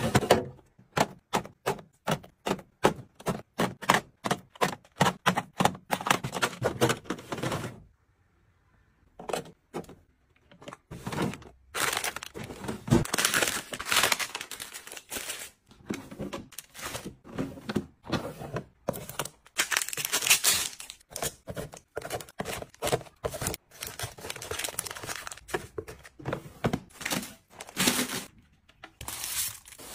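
Packaged snacks being handled and put away: a quick run of small taps and clacks, then, after a short pause, crinkling and rustling of plastic wrappers with occasional knocks.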